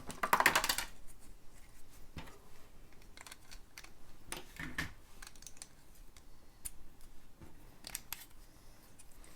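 LEGO pieces being handled and pulled apart: small plastic clicks and rattles. A quick run of clicks comes in the first second, then single clicks every so often.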